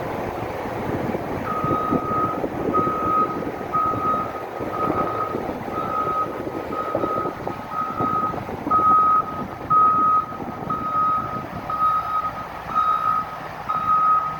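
Caterpillar 950L wheel loader backing up: its reverse alarm beeps steadily, about once a second, starting a second and a half in, over the diesel engine running.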